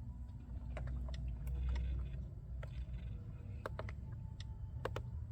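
Steering-wheel control buttons of a Mercedes-Benz W222 S-Class clicking as they are pressed, about a dozen light, irregular clicks. A low steady hum lies underneath.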